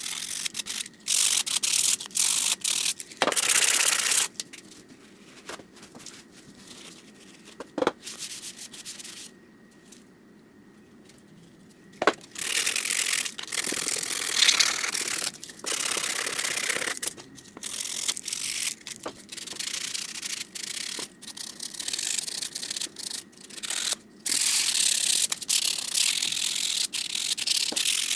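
Hand sanding a helmet mask with 220-grit sandpaper: runs of rasping back-and-forth strokes that stop and start, pausing for a few seconds near the middle.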